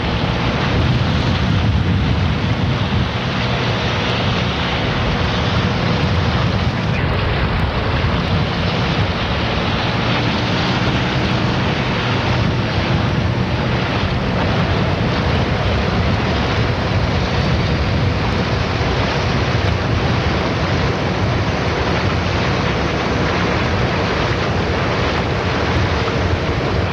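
Wind buffeting the camcorder's microphone, a steady, loud, low rushing with a faint hum beneath it.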